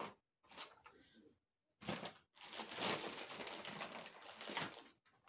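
Packaging rustling and crinkling as items are handled and searched through, in three stretches, the longest from about two and a half to five seconds.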